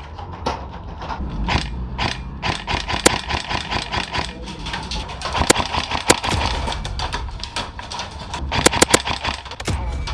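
Airsoft game sounds: scattered sharp cracks of airsoft guns firing and BBs striking, at irregular intervals, with a quick cluster of several near the end. Underneath is a steady rustle and shuffle of the player moving with his gear.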